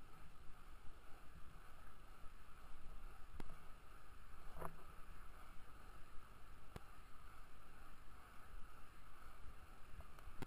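Small urethane skate wheels rolling steadily over asphalt, a continuous rumble and whir, with a few sharp ticks as they pass over bumps in the path.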